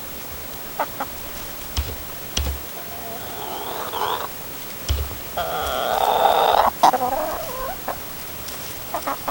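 Barred Rock hens calling: two drawn-out calls, the second, about five and a half seconds in, the louder and longer, with light clicks and knocks between them.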